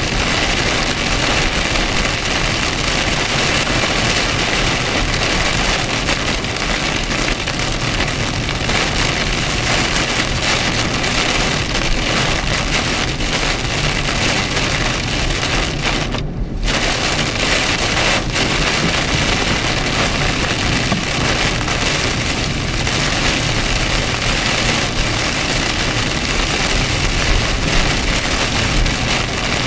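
Heavy rain drumming on a car's roof and windshield, heard from inside the cabin while driving, as a dense, steady hiss with road noise beneath. The hiss dips briefly about sixteen seconds in.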